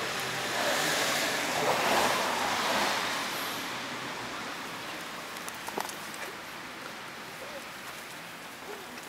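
A car passing on the road, its tyre and engine noise swelling to a peak about two seconds in and fading away over the next two, followed by a few faint light ticks.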